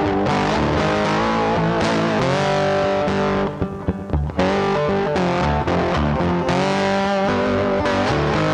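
Background music: a guitar-led instrumental with bass, dipping briefly about halfway through.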